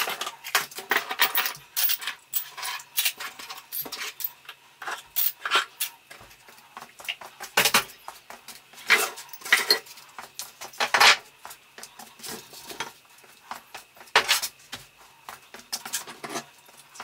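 Metal hand tools and drill bits clinking and clattering as they are handled and lifted off a shelf: a long run of irregular sharp clinks and knocks.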